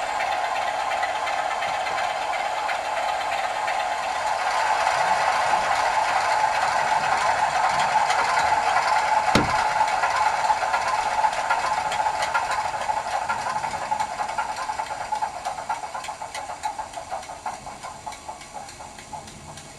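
Sound-fitted OO gauge model Class 47 diesel locomotive playing its diesel engine sound through its small onboard speaker as it runs along the track, with a rattle of wheels on the rails; a single sharp click comes about halfway through. Toward the end the sound fades and falters unevenly, as the loco stops and starts with no stay-alive capacitor to bridge lost track contact.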